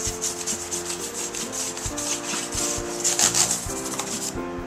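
A small brush scrubbing back and forth across a white MacBook's plastic keyboard keys: a fast, scratchy rubbing that is loudest about three seconds in and stops shortly before the end.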